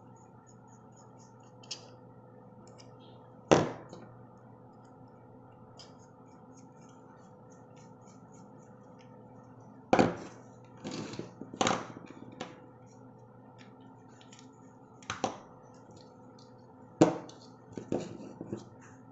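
Small rotary-tool parts being handled and fitted during reassembly: scattered sharp clicks and knocks, about ten of them, with a steady faint hum underneath. The tool's motor is not running.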